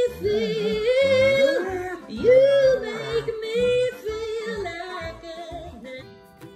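A dog howling in long drawn-out notes that slide up and down in pitch, like singing, growing fainter towards the end. Near the end, plucked-string music starts.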